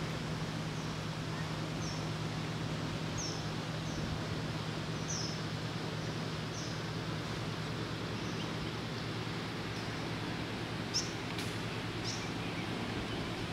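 A small bird giving short, high, falling chirps about once a second or so, over a steady outdoor noise bed with a low hum.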